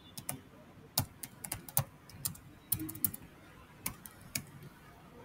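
Computer keyboard being typed on: an irregular run of sharp key clicks as a few words are entered.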